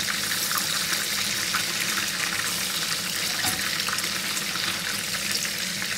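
Cheddar cheese sticks in spring roll wrappers deep-frying in hot oil in a pan: a steady sizzle dotted with small crackles and pops as the oil spatters, with cheese leaking from the wrappers into the oil.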